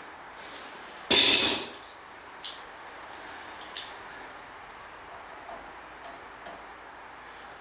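Hand work on a snowblower: a loud half-second rush of noise about a second in, then two sharp clicks, over a faint steady hiss.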